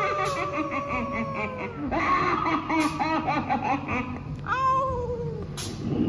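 Eerie cackling laughter over long wavering, falling moans from a haunted-house attraction's spooky sound-effects track, with three short hissing bursts about two and a half seconds apart.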